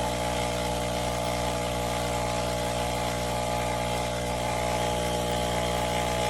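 Breville Dual Boiler BES920XL espresso machine's vibratory pump running with a steady, even buzz.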